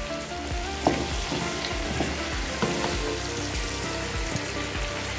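Sliced bottle gourd (lauki) sizzling in a pan as it is stir-fried with a wooden spatula, which knocks and scrapes against the pan a few times.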